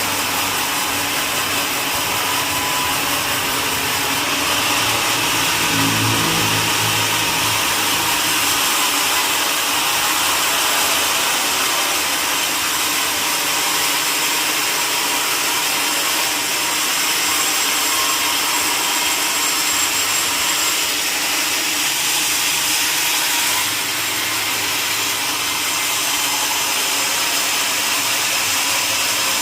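Sawmill saw running steadily through a log, a constant loud whirring hiss. A short low hum joins in about six seconds in.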